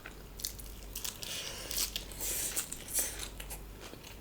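A person chewing and crunching mouthfuls of food in irregular bursts.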